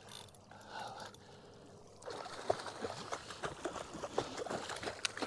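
Hooked yellowtail kingfish thrashing at the surface beside the boat: irregular splashing that starts about two seconds in.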